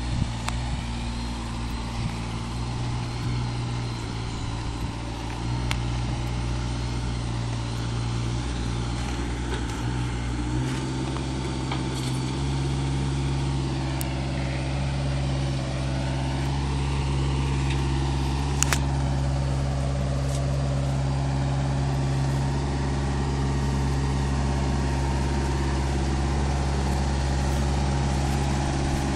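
Heavy diesel engines running steadily at idle, from the Kenworth semi truck and the truck-mounted forklift unloading its trailer. About ten seconds in, the engine note gets louder and slightly higher, then holds steady.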